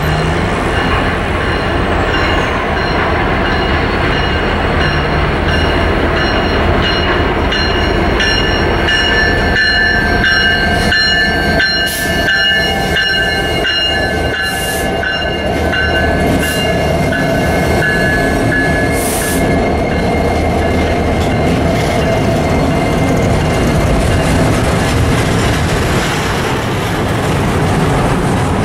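Double-stack container cars of an intermodal freight train rolling past close by: a steady, loud rumble of steel wheels on rail, with high, steady squealing tones from the wheels and a run of sharp clicks in the middle.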